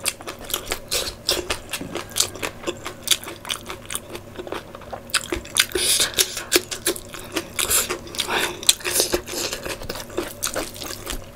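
Close-miked eating by hand: wet chewing and lip smacks as many small clicks, with fingers squishing curry into rice. A brighter, crunchier bite comes about six seconds in.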